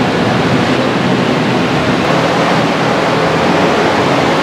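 Loud, steady rushing background noise with no distinct events, the ambient din of a crowded livestock barn.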